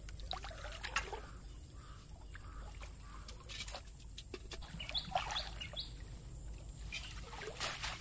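Water splashing and sloshing as a person wades through shallow, muddy floodwater. A bird gives a few short, high chirps around the middle.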